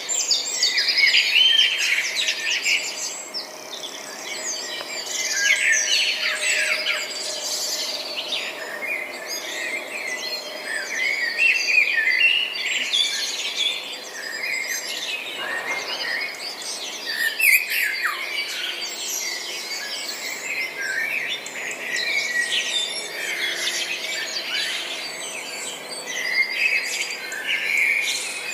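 Several birds chirping and singing at once, a dense chorus of short, high, overlapping chirps and trills that never lets up.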